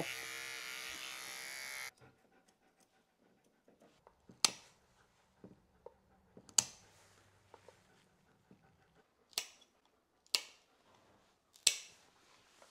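A small electric paw trimmer buzzing steadily, cutting off about two seconds in; then five sharp snips of scissor-style dog nail clippers cutting through a large dog's nails, a second or two apart.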